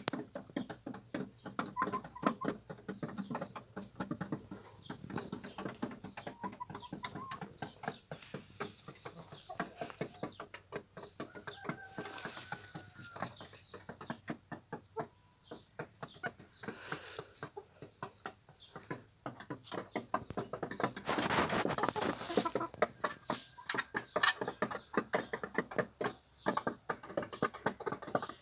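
A small flock of hens pecking and scratching at a dirt floor, with many quick ticks and rustles and now and then a soft call. About twenty seconds in comes a louder rush of rustling that fits a flurry of wing flapping.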